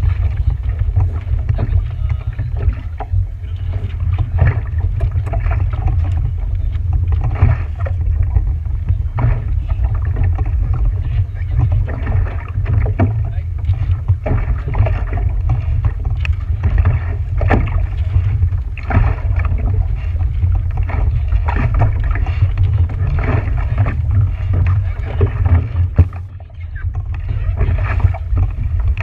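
A boat moving on open water: a steady heavy low rumble with frequent short splashes and knocks, briefly easing about 26 seconds in.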